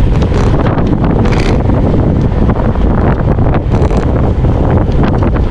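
Wind buffeting the microphone of a handlebar-mounted camera on a moving road bike: a loud, steady rush of noise.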